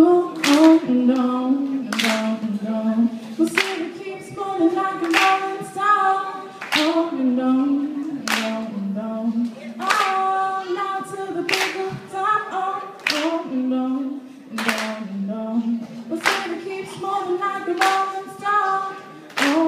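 A woman singing a melody with hand claps keeping a steady beat, about one clap every three-quarters of a second.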